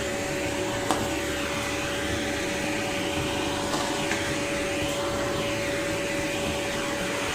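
Amazon Basics cylinder vacuum cleaner running at full speed with a nozzle attachment fitted: a steady rush of air over a steady motor whine, with a single click about a second in.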